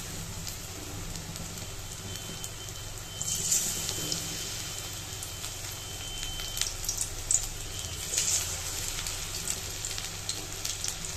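Batter-coated chicken pieces deep-frying in hot oil over medium-high heat: a steady sizzle with scattered pops and crackles, which come more often towards the end.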